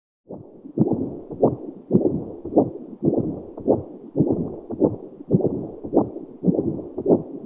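Fetal heartbeat heard through a handheld fetal Doppler's speaker. It starts about a third of a second in as a rhythmic whooshing pulse, a little faster than two beats a second.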